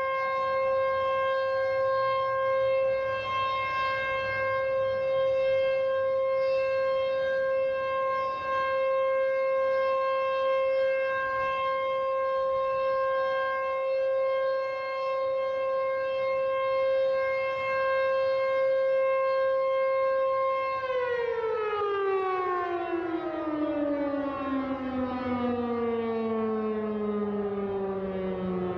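SuperSirex outdoor warning siren sounding one steady tone, then shut off about twenty seconds in and winding down, its pitch sliding steadily lower as the rotor coasts to a stop at the end of its three-minute test.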